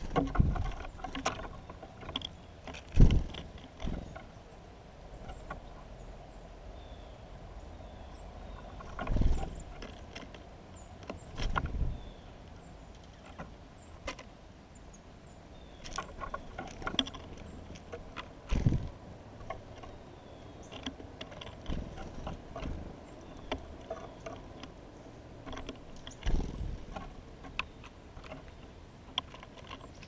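Songbirds at a window feeder: irregular heavy thumps and sharp clicks as birds land on the feeder and peck at seed, with a few faint high chirps.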